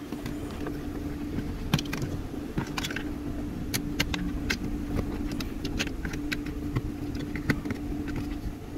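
Scattered clicks and knocks of an OBD scan tool's cable and plug being handled and connected under a car's dashboard, over a steady low hum.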